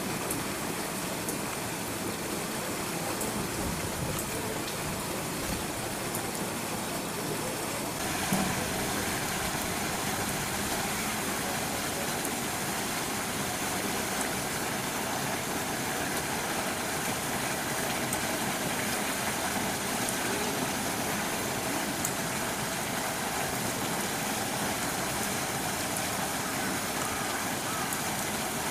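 Steady rushing of a waterfall pouring down the rock wall of an elephant enclosure: a constant even noise that turns brighter about eight seconds in.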